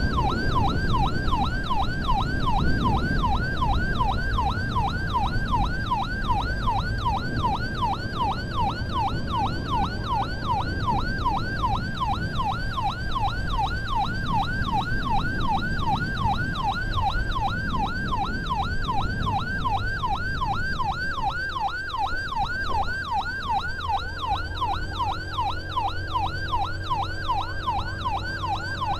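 Ambulance siren in a fast yelp, sweeping up and down about two to three times a second without a break, over engine and road noise. A steady low hum joins in near the end.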